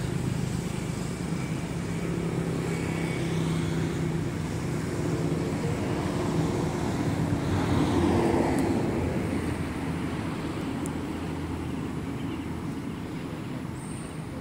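A motor vehicle's engine rumbling past, swelling to its loudest about eight seconds in and then fading.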